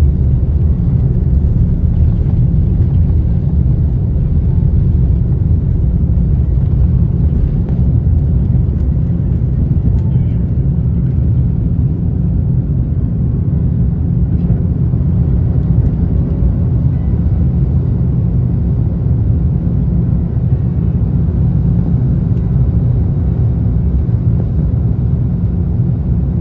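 Airliner's engines and airframe rumbling steadily during takeoff, heard from inside the passenger cabin.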